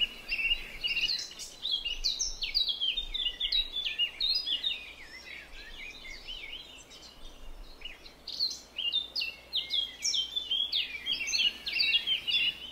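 Birds chirping: many short, quick high notes overlapping, busiest for the first few seconds and again from about eight seconds in until near the end, thinning out in between, over a faint steady background hiss.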